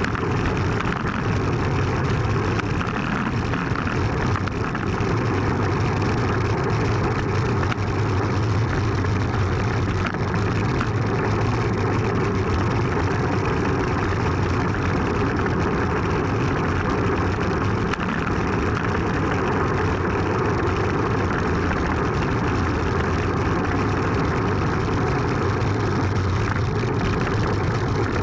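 Steady rush of wind and road rumble on a bicycle-mounted Sony HDR-AS100V action camera during a downhill ride on a paved road.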